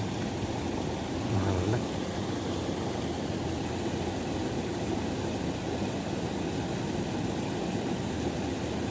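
Steady rushing of river water, a low even noise with no rhythm, and a brief louder low bump about one and a half seconds in.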